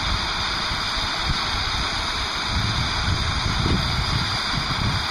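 Gas torch flame running with a steady rush, heating the saw-blade steel back up to the non-magnetic temperature for hardening before the oil quench.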